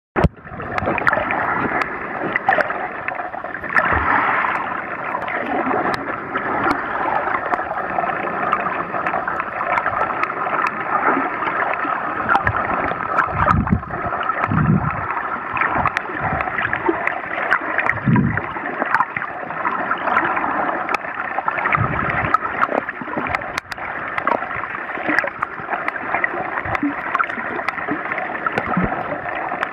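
Underwater sound picked up by a camera below the surface: a steady, muffled rush of moving water with scattered sharp clicks and crackles, and a few low surges, most of them in the second half.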